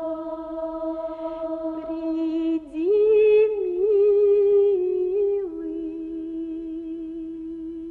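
A woman's voice sings a Russian folk song unaccompanied in long drawn-out notes. About three seconds in she rises to a louder, higher note with a wavering ornament, and after about two seconds drops back to the lower note and holds it.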